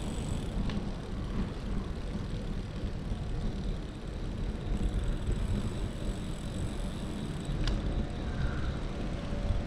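City street ambience: a steady low rumble of street noise, with a sharp click about a second in and another a couple of seconds before the end.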